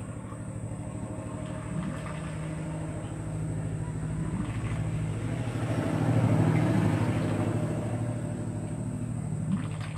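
An engine running steadily at an unchanging pitch, swelling louder about six seconds in and then easing off.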